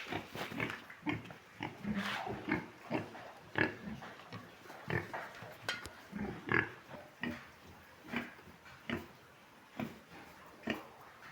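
Large White pigs grunting in short, irregular calls, several each second, with some squeals and knocks mixed in.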